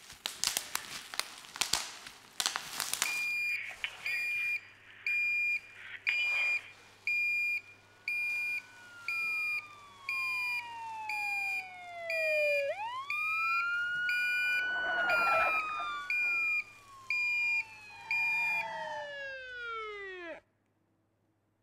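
An alarm goes off: a high electronic beep repeating about once a second, with a siren sweeping down and up in pitch over it, after a few seconds of loud crackling rustle at the start. It all cuts off suddenly near the end.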